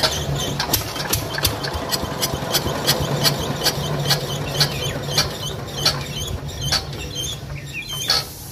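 Hand-cranked single-cylinder water-cooled diesel engine of a 7.5 kVA generator turning over and running unevenly, with sharp knocks about two or three a second over a steady low hum. It dies away just before the end: the start does not hold.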